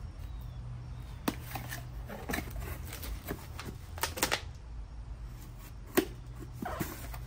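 Small cardboard boxes being opened and handled on concrete: crisp flap rustles and taps, a quick cluster about four seconds in and one sharp tap about six seconds in, over a steady low hum.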